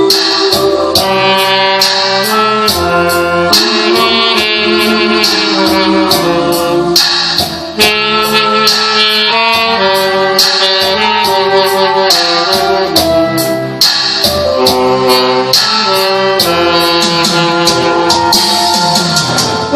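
Instrumental music, a passage without singing: a melody line over a steady, evenly spaced beat.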